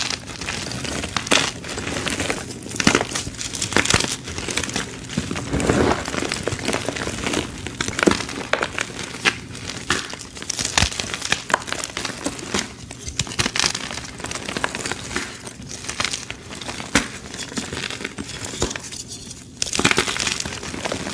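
Dyed gym chalk blocks being crushed and crumbled between the fingers: a dense, irregular run of dry crunches and crackles as the chalk breaks into crumbs and powder.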